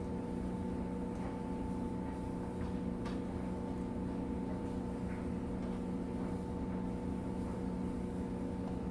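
A steady machine hum runs at an even level throughout. Over it come a few faint soft clicks as marinated chicken wings are lifted from a glass bowl and laid on a wire rack.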